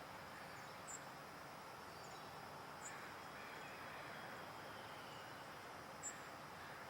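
Faint, steady outdoor background noise with three brief, high-pitched chirps, about a second, three seconds and six seconds in.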